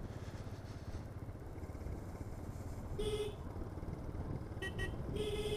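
Vehicle horn honking over the steady low rumble of a motorcycle ride: one short honk about three seconds in, two quick beeps just after, then a longer honk near the end.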